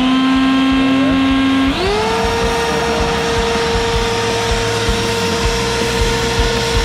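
WORX WG520 corded electric turbine leaf blower running with a steady whine over a rush of air. Nearly two seconds in it is switched up from its lower speed setting, and the whine glides up in pitch and holds steady at the higher speed.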